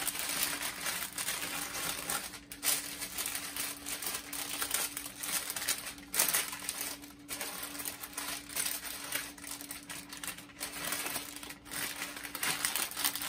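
Plastic zip-top freezer bag crinkling and rustling in irregular bursts as raw ground-beef patties are pushed into it by hand.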